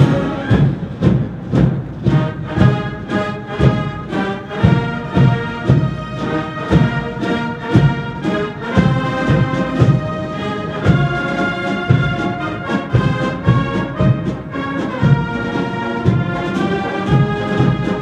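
A brass band with drums playing music, the brass holding chords over a steady drum beat of about two strokes a second.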